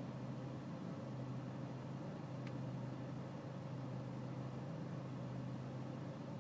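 BMW E46 320Cd's four-cylinder common-rail diesel engine idling steadily with a low, even hum, in the rough idle the owner is chasing while the engine is still cold.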